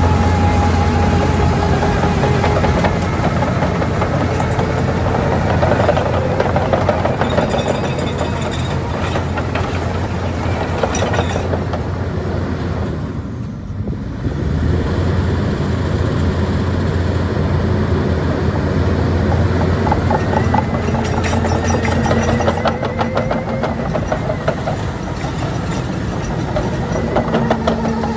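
Diesel engine of a Vögele Super 1900-2 asphalt paver running steadily, with a whining tone that wavers in pitch over it. The level dips briefly about halfway, and a run of rapid rattling clicks comes in the later part.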